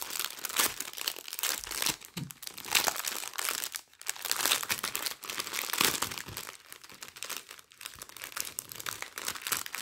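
Clear plastic bags crinkling and crackling as hands pull small zip-lock bags of diamond painting drills out of a larger plastic bag, a dense run of sharp crackles.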